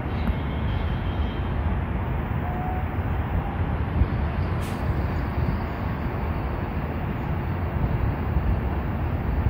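Abra, a wooden water taxi, motoring along the canal, its diesel engine a steady low rumble.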